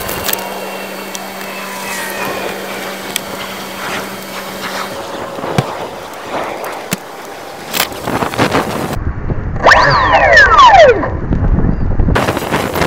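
Handling noise on the Sky Surfer v5 model plane's onboard camera microphone: knocks, clicks and rustling as the plane is picked up, with wind on the microphone. About ten seconds in comes the loudest sound, a whine falling steeply in pitch over a second or so.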